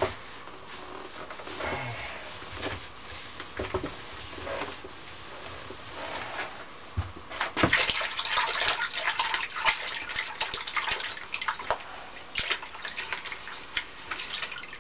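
Scrubbing and wiping a surface by hand with water, with splashing and dripping. Irregular scraping strokes that get louder and busier about halfway through.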